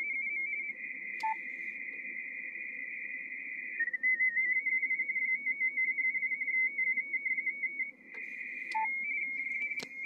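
Amateur-radio RTTY signal from a Yaesu transceiver's speaker: a steady warble near 2 kHz, keying back and forth between two closely spaced tones. The tone thickens twice, for about three seconds early on and for under a second near the end, and a few sharp clicks sound, the loudest just before the end.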